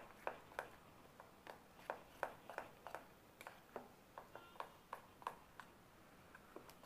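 Faint, irregular light clicks and clinks, about three a second, as a hand mixes flour into a thick banana batter in a steel mixing bowl, with a brief faint metallic ping about halfway through.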